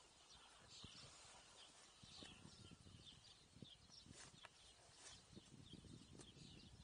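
Faint, irregular crunching and tearing of a cow grazing, ripping up and chewing grass. Small birds chirp in the distance.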